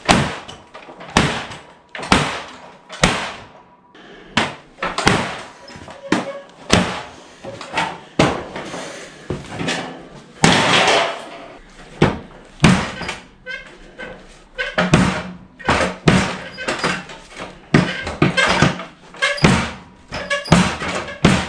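KA-BAR tanto fighting knife with a 1095 Cro-Van steel blade stabbed over and over into a car door's sheet metal, and later into a wooden board. Each stab is a sharp thunk with a short ring, about one a second and sometimes quicker.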